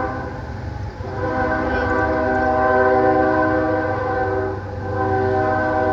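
Locomotive horn sounding a steady multi-note chord in long blasts, breaking briefly just before a second in and again near five seconds, over the low rumble of a passing train.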